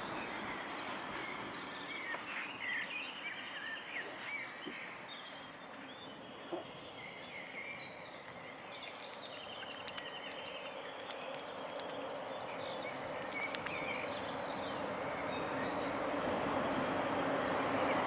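Dawn chorus of songbirds: many overlapping chirps and short trills. Beneath them is a steady rushing noise that grows louder over the second half.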